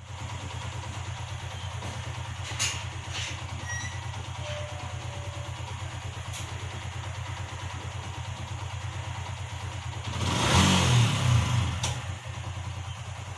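Vehicle engine running steadily with a low, lightly pulsing hum, growing louder for about two seconds some ten seconds in, with a few faint clicks.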